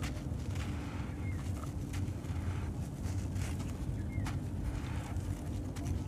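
A compacted lump of sand-cement mix squeezed and broken apart by hand, giving soft gritty crunching and scattered sharp crackles. A steady low rumble of wind on the microphone sits under it and is the loudest sound.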